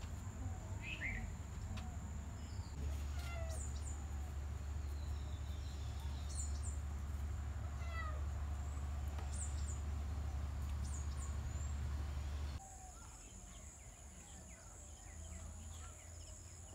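Outdoor ambience of short bird chirps and calls over a low steady rumble. The background changes abruptly about twelve seconds in.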